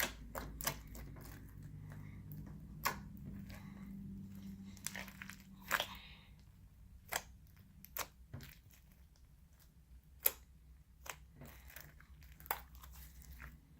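Crunchy slime with foam beads being squeezed and pressed by hand, giving irregular crackles and sharp pops as the beads crunch.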